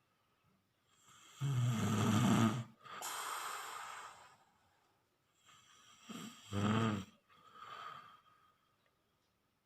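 Snoring: two loud snores about four and a half seconds apart, each followed by a quieter, breathy exhale. The second snore has a wavering pitched tone.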